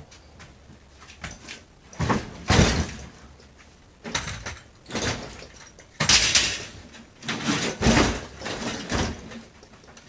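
Irregular scraping and knocking as the old refrigerator's cabinet is pried and pulled apart, in short bursts of under a second.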